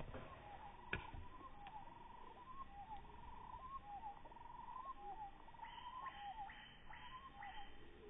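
Small birds calling repeatedly in the trees: short chirps and fast trills. There is a sharp click about a second in, and a run of about five quick sweeping notes near the end.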